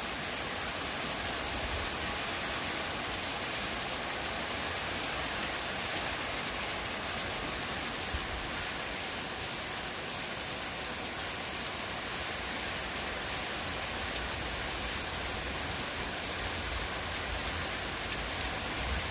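Heavy rain falling steadily, a continuous hiss with scattered drop impacts.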